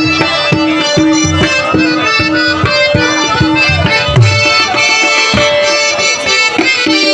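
Traditional jhoomar folk music: a steady drum beat, about two strokes a second, under a held, sustained melody line.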